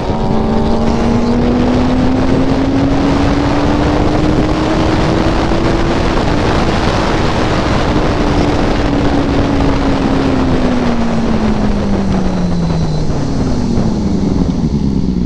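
Benelli 600i inline-four motorcycle engine under way at road speed, heard from the rider's seat. There is a gear change right at the start, then the engine note climbs slowly for about six seconds, holds, and drops away over the last few seconds as the rider rolls off the throttle. Wind rushes over the microphone throughout.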